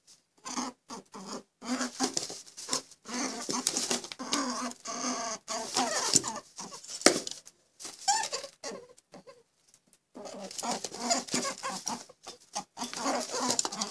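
Rabbits making short repeated calls in quick succession, with a brief pause about ten seconds in.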